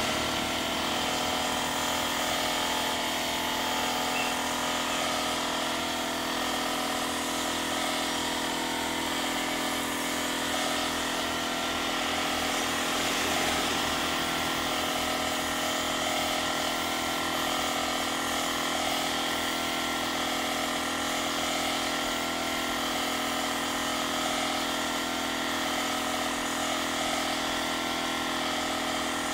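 Motor of an air compressor running steadily with an even hum, supplying the air hose used for spray-painting the wing.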